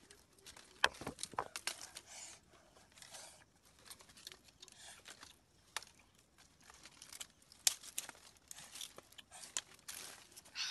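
Dry sticks and twigs being handled and piled for a fire: irregular sharp snaps and clicks with a dry crackling rustle in between.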